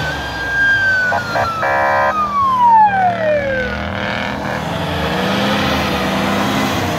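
A high whine from an off-road vehicle working in deep snow holds steady, then slides down in pitch over a couple of seconds as the revs drop. A short honk-like blast sounds about two seconds in, with the engine running underneath throughout.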